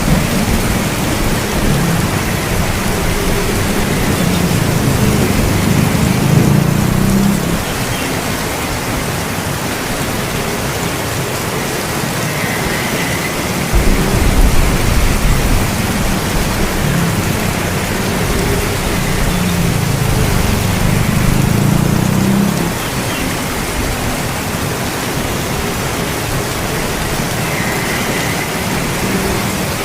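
Steady heavy rain with rolling thunder: a low rumble swells a few seconds in and dies away around seven seconds, and another builds from about fourteen seconds and fades a little past twenty-two seconds.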